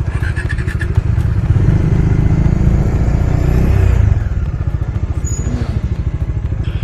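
Bajaj Dominar 400's single-cylinder engine running, pulling harder for about three seconds and then easing off about four seconds in.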